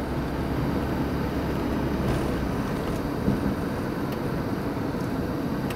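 Cabin sound of a 1990 Volvo 240's four-cylinder engine cruising steadily at about 40 mph with the overdrive just engaged, over road noise and the air-conditioning fan.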